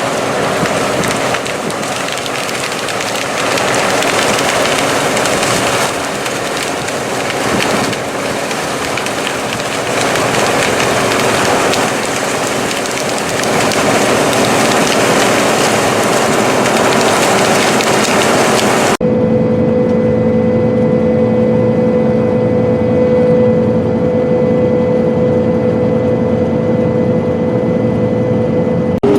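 Claas Mega 204 combine harvester running while harvesting sunflower: a dense, steady hiss of machinery and crop over a faint held hum. About 19 seconds in the sound cuts abruptly to a duller, steadier running noise with two strong held tones.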